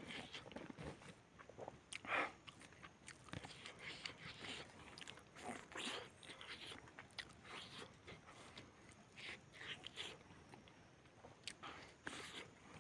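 Faint, close eating sounds: a man chewing a mouthful of chicken and rice eaten by hand, in irregular short clicks and bursts.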